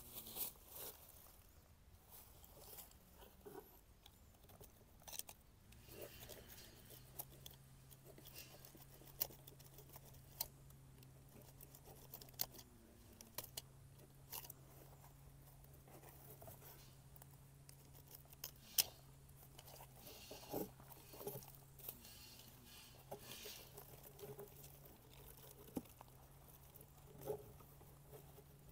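Faint, scattered rustles and small clicks of hands handling rose seedlings and their plastic packaging, over a faint low hum that stops and starts.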